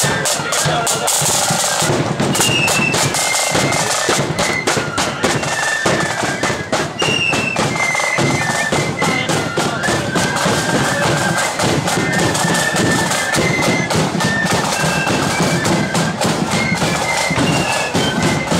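Marching flute band playing a march: flutes carry a high, shrill tune over rapid, continuous side-drum rolls and strokes.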